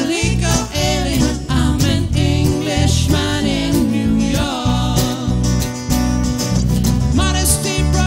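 Live band music: two acoustic guitars and an electric bass play a steady groove, with a wavering lead melody line with vibrato on top and no sung words.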